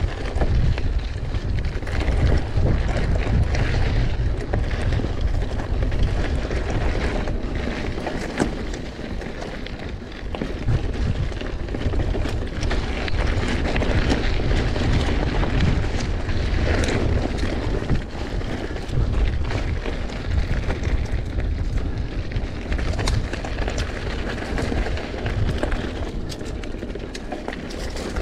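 Wind buffeting an action camera's microphone as a mountain bike rides down a singletrack trail, with tyre noise and many small knocks and rattles from the bike over the bumps.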